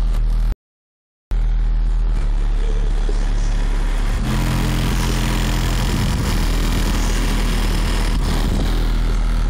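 Bass-heavy music played loud through a car stereo with a 15-inch subwoofer, the deep bass dominating; the sound cuts out completely for under a second about half a second in.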